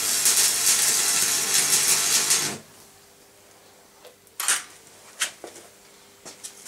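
Electric arc welding crackling and hissing steadily, stopping abruptly about two and a half seconds in, followed by a few sharp taps.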